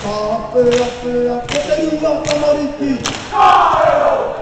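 Group of male voices chanting a Maori haka in unison, holding pitched notes. Sharp hits come about every three-quarters of a second, and a loud shouted cry falls in pitch near the end.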